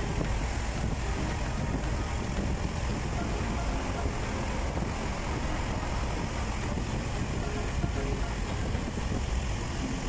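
Steady road and engine noise inside a car driving through a road tunnel: an even rush with a heavy low rumble that holds at one level throughout.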